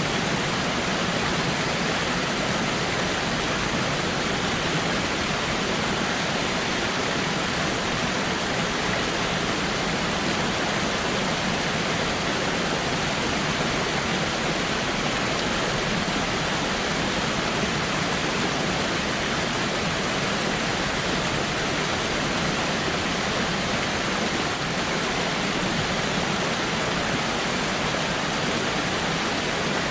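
Waterfall: a steady, unbroken rush of falling water, even and unchanging throughout.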